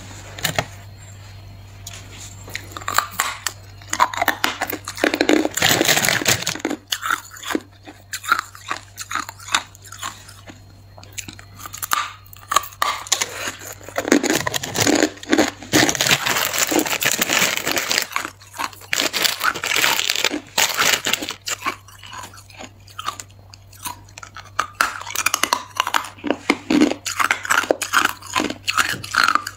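A person biting and chewing hard ice close to the microphone: a dense run of sharp crunches and cracks, with a few quieter stretches between bites, over a faint steady low hum.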